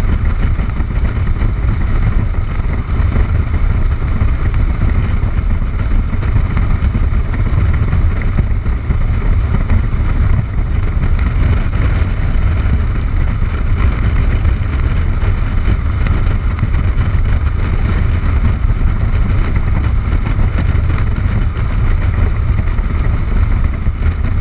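Cruiser motorcycle riding at steady highway speed: engine, tyre and wind rush blend into a loud, steady low rumble with no change in speed.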